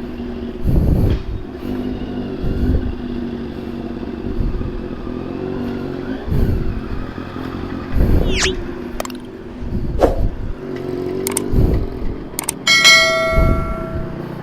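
Motorcycle engine running steadily while riding, with wind gusting on the microphone and a few sharp clicks. About 13 s in, a short pitched beep sounds.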